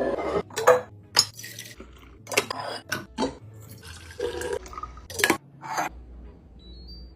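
Food and drink containers being handled and put into a fridge: a string of short, irregular clinks, knocks and rustles.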